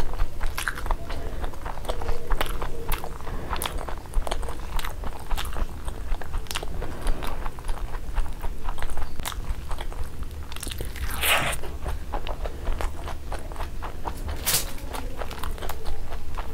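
Close-up mouth sounds of biting and chewing crispy-edged fried eggs: a run of small crunches and crackles, with a louder crunch about two-thirds of the way through and another near the end.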